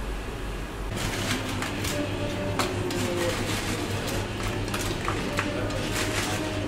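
Tortilla chips crackling and rustling in many quick irregular clicks as a gloved hand scoops them from a chip warmer into a metal bowl, starting about a second in, over a steady low hum.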